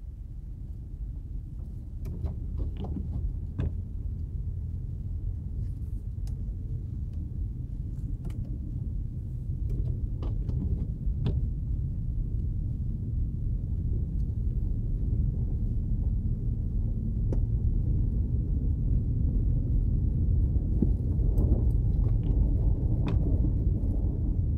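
Low road and engine rumble heard from inside a Subaru Impreza driving on a snow-packed road, slowly growing louder, with scattered short sharp clicks.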